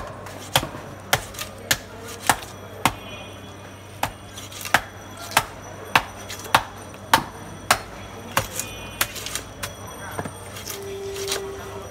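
Heavy fish-cutting blade chopping through fish pieces, a run of sharp chops roughly every half second with a short pause about three seconds in. A brief steady tone sounds near the end.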